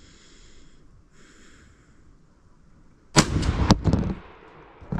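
A single blast from a Remington 11-87 semi-automatic shotgun firing a Winchester Long Beard XR turkey load, about three seconds in. It is followed at once by a short clatter of knocks as the recoil knocks the GoPro over.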